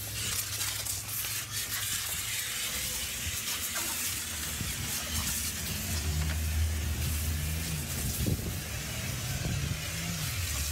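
Steady hiss of water sprayed from a garden hose nozzle onto a soap-foamed car body. A low hum comes in about halfway through.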